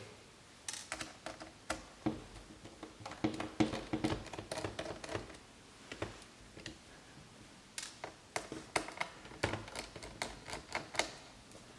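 Irregular light clicks and taps from hands handling a laptop's opened display assembly and its small loose screws.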